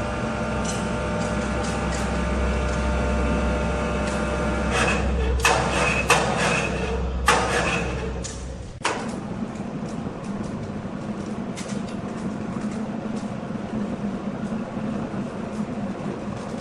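A woodworking machine runs with a steady hum and low drone, with several bursts of louder noise in the middle. It cuts off suddenly about nine seconds in, leaving light scattered clicks and knocks.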